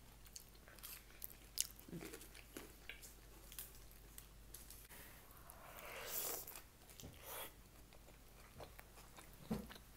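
A person biting and chewing food, faint, with scattered sharp clicks and a longer swell of noise about six seconds in.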